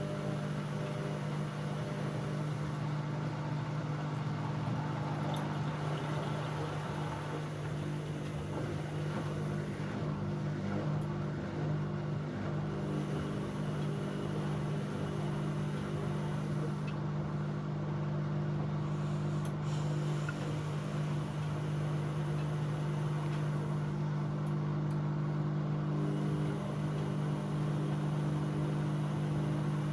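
Bauknecht WA Aquaton 1400 front-loading washing machine running mid-cycle on a 60 °C cottons wash, a steady low motor hum with a faint whirring rush over it.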